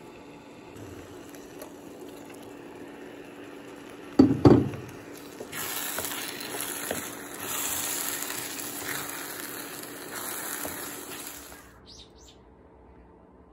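Rice and abalone innards sizzling in a hot steel pot while being stirred with a wooden spatula, cooking for abalone porridge. Two heavy thumps about four seconds in come just before the sizzle starts, and the sizzle cuts off abruptly near the end.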